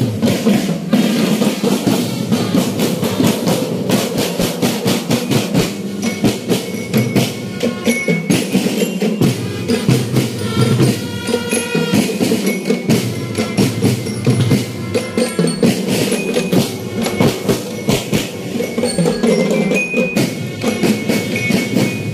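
Marching band drumline playing snare, tenor and bass drums in a fast, dense rhythm.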